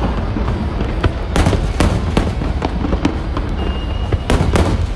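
Aerial fireworks bursting: a rapid run of bangs and crackles over a low rumble, with loud clusters of bursts about a second and a half in and again near the end.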